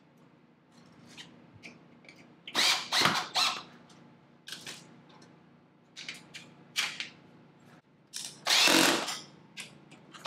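Cordless drill fastening a steel mini-split wall-mounting bracket to the wall. It runs in several short bursts, and the longest and loudest run comes near the end.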